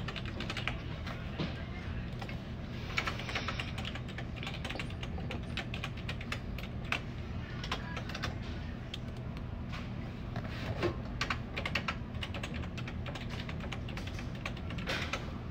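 Typing on a computer keyboard: irregular runs of key clicks over a steady low hum.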